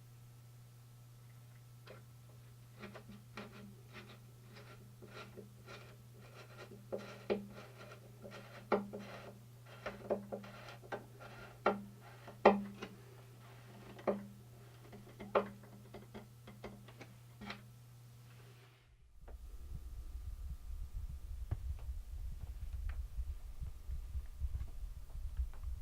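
Irregular sharp knocks and clicks, one or two a second, over a steady low hum. After a sudden cut about three-quarters of the way through, a louder low rumbling noise with faint crackles takes over.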